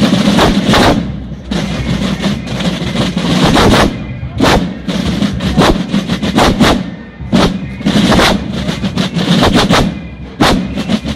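A massed group of Basel drums, large rope-tensioned marching drums, played together in rolls and sharp strokes. The playing comes in loud phrases with brief dips about every three seconds.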